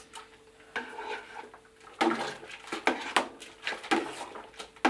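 A spoon stirring and scraping around the inside of a stainless steel stockpot, knocking against its sides, as dry malt extract is stirred into the wort to break up clumps. It is quiet for about the first two seconds, then comes a quick run of scrapes and clinks.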